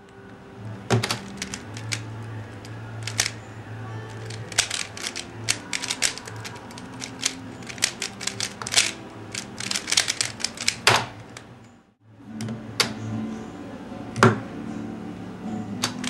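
Rapid, irregular clicking and clacking of a Dayan Guhong 3x3 speed cube being turned fast during a speedsolve, over background music. The sound cuts out briefly about three quarters of the way through, then the clicking starts again.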